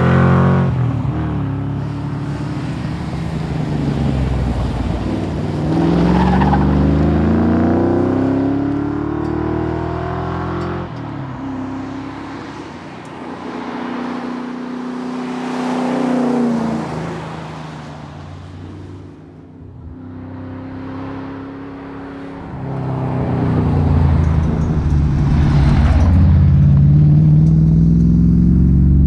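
Valiant Charger rally car's engine accelerating hard, its note climbing in pitch through long pulls with a gear change about eleven seconds in. It eases off and goes quieter for a few seconds past the middle, then climbs again near the end.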